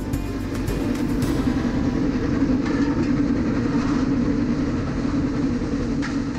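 Steam locomotive running, heard from its footplate: a steady, dense rumble of the engine and wheels on the rails, with a light knock near the end.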